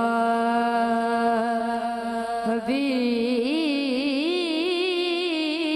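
A boy's solo voice singing a naat, a Urdu devotional song in praise of the Prophet, into a microphone. He holds one long steady note, then about two and a half seconds in moves a little higher into a wavering, ornamented run.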